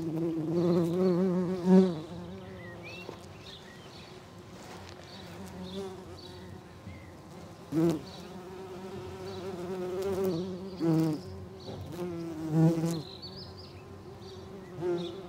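Bumblebees buzzing in flight around phacelia flowers: a low wing hum that wavers in pitch and swells loud several times as a bee passes close, then fades back.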